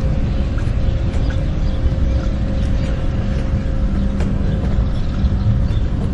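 Steady low rumble of a boat engine running at the marina, with a constant hum over it and scattered light clicks and knocks.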